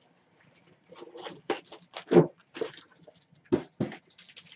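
A small cardboard shipping box being opened and its contents pulled out by hand: a string of short rustles and scrapes of cardboard and packing, loudest about two seconds in and again about three and a half seconds in.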